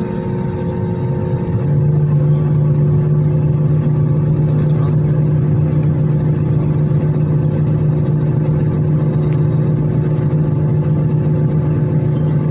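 Airliner engines and cabin noise heard from inside the cabin: a steady, loud drone with a few held tones, and a deeper hum that comes in about two seconds in and holds.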